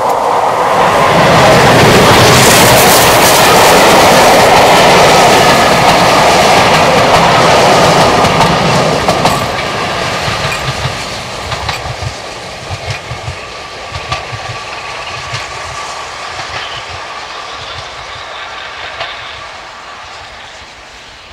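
A steam-hauled train passing close by. It is loudest over the first eight or nine seconds, then fades as the carriages go by, their wheels clicking over the rail joints.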